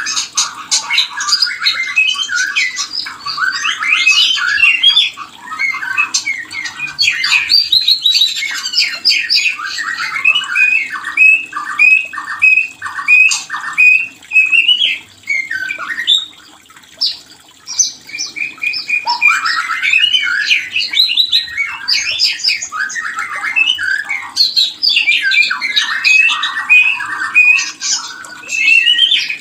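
White-rumped shama singing its breeding song: a fast, varied run of chattering trills and repeated whistled notes with hardly a pause.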